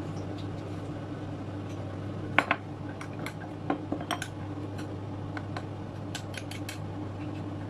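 Utensil clinking against a ceramic bowl while stirring a sauce with hot water: irregular sharp clinks, the loudest a little over two seconds in, with a steady low hum underneath.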